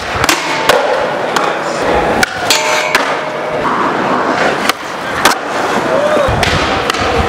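Skateboard wheels rolling on concrete, broken by sharp clacks and slaps of tail pops and landings, with a scraping stretch a bit over two seconds in as a board grinds a metal rail.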